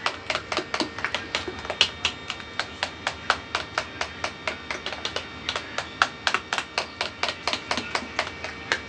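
Spoon beating cream and mango shake by hand in a ceramic bowl, clinking against the bowl about five times a second, to beat the mixture until it turns yellow.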